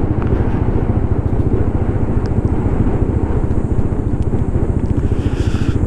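Steady rumble of a motorcycle on the move: wind rushing over the rider's microphone together with engine and road noise.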